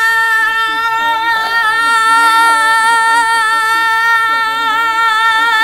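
A girl singing one long held note, the drawn-out "cough" of a sung "cough drops"; the pitch stays steady and wavers slightly near the end.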